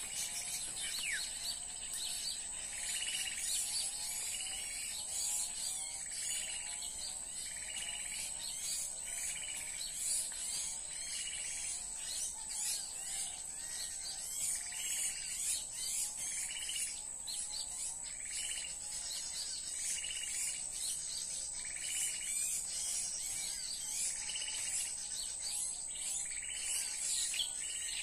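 Recorded small-bird lure calls played from a portable speaker, short calls repeating about once a second over a faster run of falling notes, with a steady high insect whine behind.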